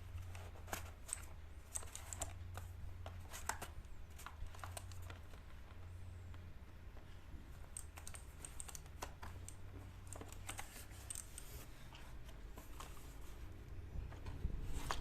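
Keys of a Gamen Titan Elite mechanical keyboard clicking in irregular taps and short runs, over a steady low hum.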